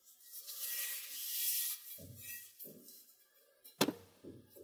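Handling noise from a rusty crescent-bladed iron cleaver turned over in gloved hands. A rubbing rustle runs for the first couple of seconds, followed by a few soft knocks and one sharper tap a little before the end as the blade touches the table.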